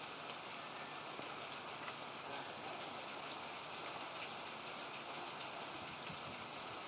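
Lawn sprinkler spraying water: a steady, even hiss.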